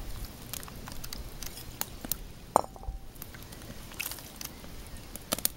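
Chopped vegetables tipped from earthenware bowls into an earthenware pot, with soft scattered clicks and scrapes as the pieces fall and the bowl is scraped out. One sharp clink of ceramic on ceramic, with a brief ring, comes about two and a half seconds in.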